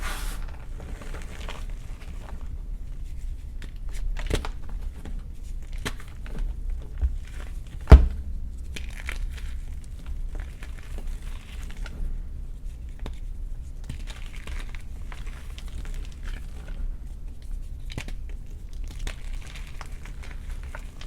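Block of gym chalk crunching and crumbling as it is crushed, an irregular dry crackle, with one sharp loud click about eight seconds in.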